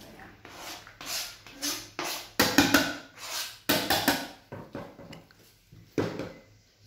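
Chopped salsa vegetables stirred and scraped in a plastic bowl with a spatula and knife, with chopped onion scraped off a plastic cutting board into it. It comes as a series of short scraping strokes, loudest in the middle.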